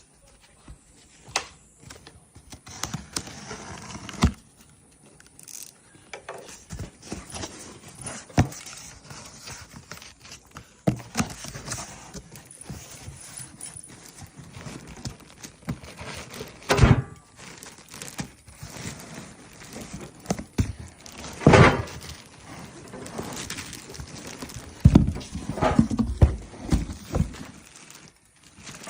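Hands unpacking a campfire stand: irregular knocks, clinks and thunks of its parts being handled and set down, amid rustling of packaging, with a few louder thumps in the second half.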